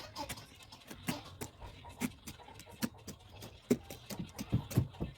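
A string of irregular sharp taps and knocks, with several heavier, duller thuds near the end, from hand work on a sofa being repaired.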